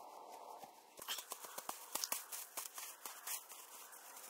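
Snow crunching under hands and body as a heap of fresh snow is pressed and packed down. It is a quick, irregular run of crunches starting about a second in.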